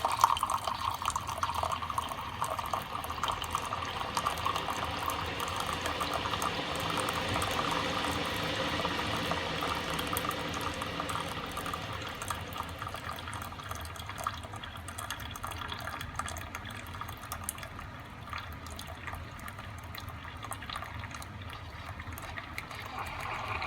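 Cuisinart single-serve K-cup coffee maker brewing on its 6-ounce setting: a steady stream of coffee pouring into a cup, filling it, and growing gradually quieter through the second half.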